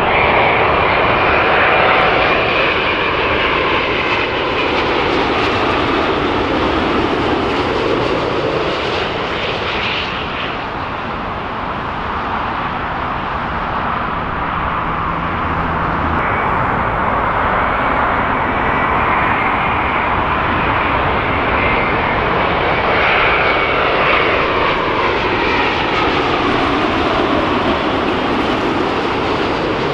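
Large jet airliner's engines on final approach, a loud steady jet noise with whining tones that sweep down in pitch as it passes.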